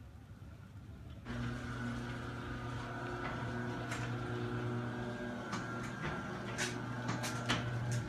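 Electric garage door opener starting about a second in and running with a steady hum as the garage door goes up, with a few sharp clicks and rattles along the way.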